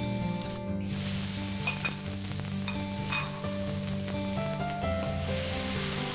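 Small river shrimp frying in hot oil in a wok with ginger and scallions, sizzling steadily as a ladle stirs them, starting about a second in. The sizzle grows louder near the end.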